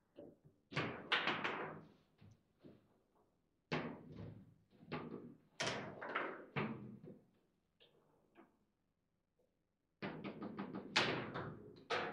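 Table football in play: quick runs of sharp knocks and clacks from the ball and the players' rods striking, in three bursts with a quiet spell in between.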